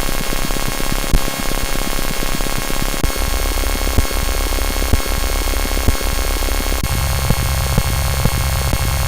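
US Emergency Alert System alarm audio sped up so far that it has become a dense, harsh electronic buzz with scattered clicks. The low buzz steps up in pitch about three seconds in and again about seven seconds in as the speed-up increases.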